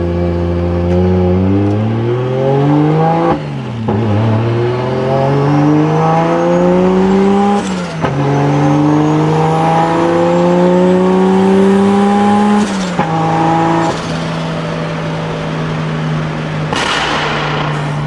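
Nissan Skyline R34 GT-R's straight-piped RB26 twin-turbo straight-six, heard from inside the cabin, accelerating through the gears. Its pitch climbs in each gear and drops back at three upshifts, about 3.5, 8 and 13 seconds in, then holds steady at cruise, with a brief rush of noise near the end.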